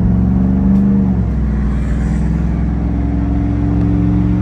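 Ford V8 engine running with a low, steady note; its pitch drops slightly about a second in, then holds.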